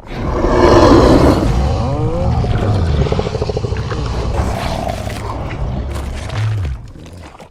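A long, loud creature roar sound effect for a gorilla, loudest about a second in with a deep rumble underneath, trailing off shortly before the end.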